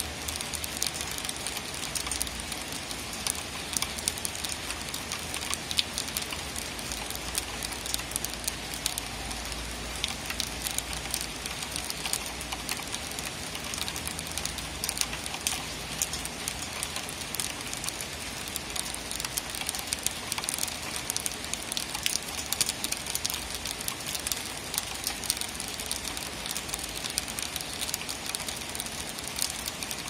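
Steady rain falling, a dense, even spatter of small drop ticks with no let-up.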